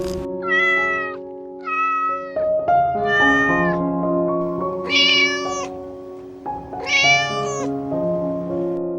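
A cat meowing five times, short high calls about half a second each, a second or two apart, over background music with held notes.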